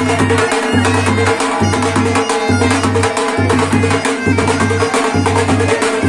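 Live dhol and been music. Double-headed dhol drums beat a fast, driving rhythm with deep bass strokes under the steady droning tone of the been, a reed pipe.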